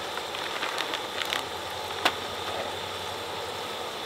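Shrimp, sausage and vegetables sizzling and crackling on a hot Skottle disc griddle as corn is tipped onto it, with scattered small ticks and one sharp clink about two seconds in.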